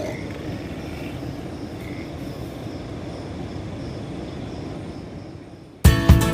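Steady low outdoor rumble with no clear single source, then strummed acoustic guitar music cuts in suddenly near the end.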